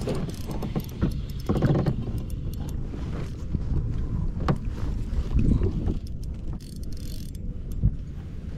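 Wind buffeting the microphone over open water, with scattered clicks and rattles from a spinning reel being handled and reeled.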